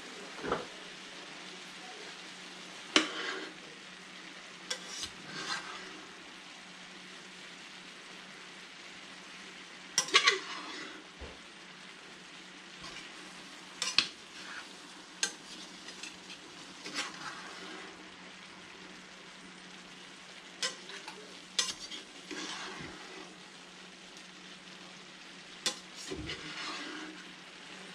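Vegetables and meat sizzling in a skillet while a metal spatula stirs them, scraping and clinking sharply against the pan every few seconds.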